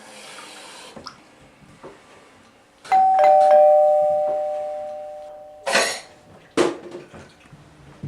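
A two-note doorbell chime, ding-dong: a higher note about three seconds in, then a lower one about half a second later, both ringing on and fading. Nearly three seconds later a loud, short rushing burst cuts it off, and a second short burst follows. A soft hiss comes before the chime.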